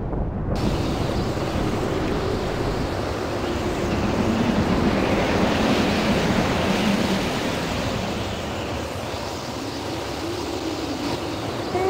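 Wind blowing steadily, with a faint moan that rises and falls.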